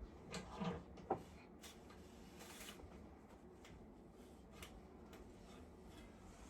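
Faint scattered clicks and light knocks of small objects being handled, over a low steady room hum.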